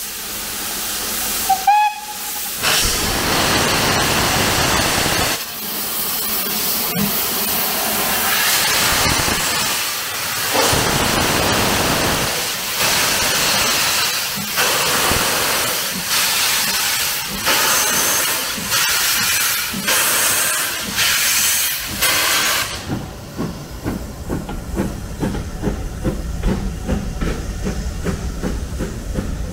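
Steam locomotive 80078, a BR Standard Class 4 2-6-4 tank engine, gives a short whistle and starts away. Its cylinder drain cocks are open, so steam hisses loudly in heavy beats that quicken. From about 23 s in the hissing fades and its coaches roll past with a rhythmic clatter of wheels over the rail joints.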